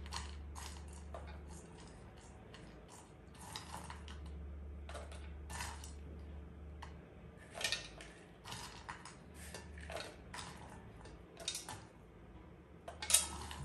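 Ground walnut pieces rustling and clicking against their bowls as fingers sift and pick through them for leftover bits of shell: soft, irregular clicks with a few sharper ones.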